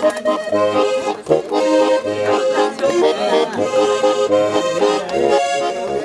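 Accordion music with a regular bass beat under sustained chords.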